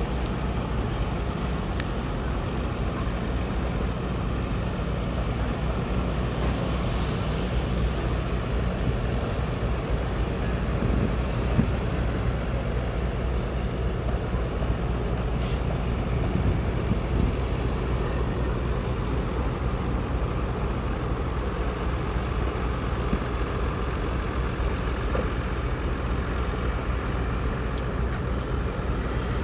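Heavy diesel construction machinery running steadily: a continuous low engine drone from earthmoving equipment such as excavators, dump trucks and bulldozers.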